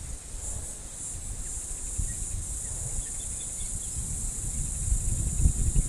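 A steady, high insect drone of summer bush insects, over low churning water sloshing around the half-submerged camera housing.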